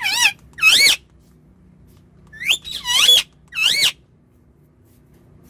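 Pet parrot calling: loud, high, warbling squawks with a wavering pitch, in two bunches, one in the first second and another of three calls from about two and a half to four seconds in.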